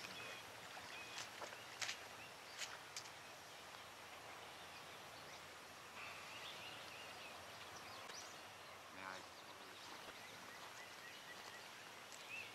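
Quiet waterside ambience with faint bird calls: brief chirps about six seconds in and near the end, and a short rapid rattling call about nine seconds in. There are a few faint clicks in the first three seconds.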